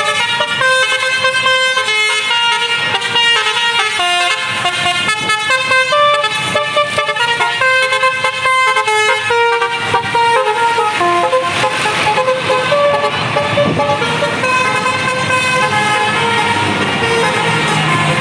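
Bus 'telolet basuri' melody horn playing a fast tune, loud, in stepped notes that change several times a second. A rougher rushing noise joins for a few seconds past the middle.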